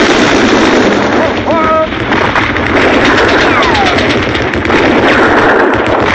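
Battle sound effects: dense gunfire and artillery explosions, with a brief shouted voice about one and a half seconds in and a falling whistle between about three and four seconds in.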